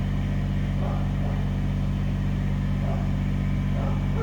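An engine running at a steady idle, a constant low drone, with faint distant voices now and then.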